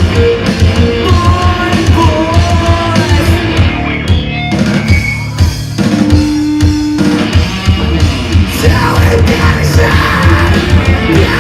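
Live emo/metalcore band playing loud and fast: pounding drums, distorted guitars and singing. About halfway through the band thins out for a few seconds around a held note, then the full band comes back in.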